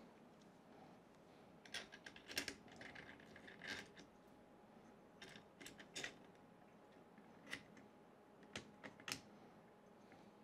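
Faint, scattered clicks and light taps of small hardware being handled and fitted by hand to a 3D printer's frame, a dozen or so irregular ticks over otherwise near silence.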